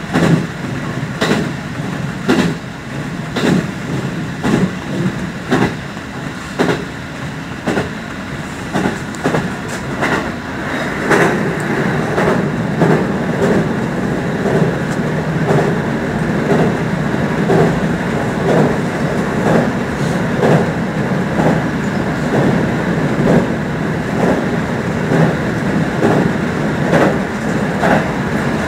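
JR Central 313 series electric train running, heard from on board, its wheels clicking rhythmically over the rail joints. The clicks come about once a second at first and quicken as the train gathers speed. From about eleven seconds in, the running noise grows louder.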